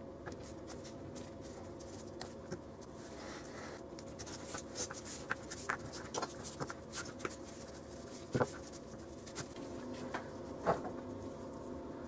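Handling noise from gloved hands working a small tube kit and cord: scattered light scratches and clicks, with two sharper knocks in the second half, over a faint steady hum.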